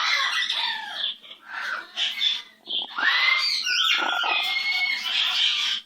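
A pet parrot making weird little chattering and squawking noises, answering its owner's prompts to say "baby". About halfway through these turn into held, whistle-like tones.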